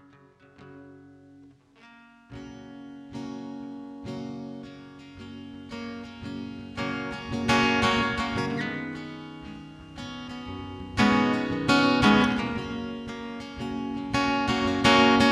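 Acoustic guitar playing an instrumental intro: single notes at first, then fuller strummed chords from about two seconds in, growing steadily louder.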